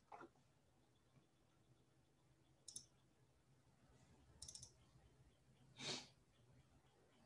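Near silence: faint room tone with a single soft click about three seconds in, a quick cluster of clicks a second and a half later, and a short soft noise near six seconds.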